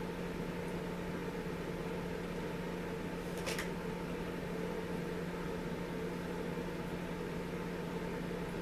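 Steady background hum with an even hiss, and one brief light click about three and a half seconds in.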